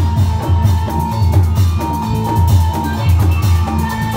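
Loud live music accompanying a Reog Indramayu dance: drums keep a steady driving beat under held metallic pitched tones.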